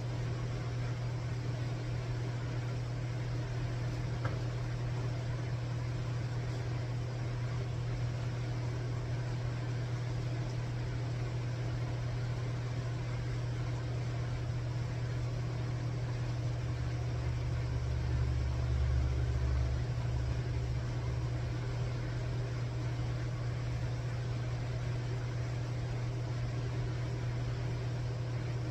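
Steady low mechanical hum, with a slightly louder low rumble about two thirds of the way through.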